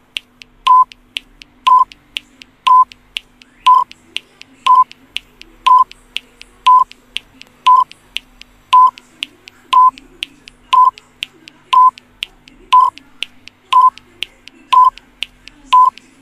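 Quiz countdown timer sound effect: a short, high beep about once a second, with a lighter click between each pair of beeps, ticking steadily while the answer time runs down.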